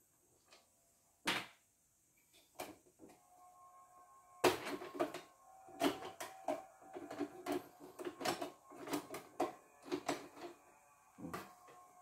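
Screwdriver and plastic housing parts of a portable embroidery machine clicking, tapping and rattling as its cover is unscrewed and pried off: a sharp knock about a second in, then a dense run of clicks and taps from about four seconds in.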